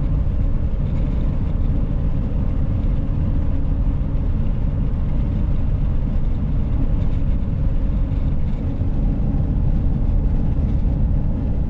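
Steady low rumble of a vehicle driving at highway speed, heard from inside the cab: engine and tyre noise with a fainter hiss of road and wind.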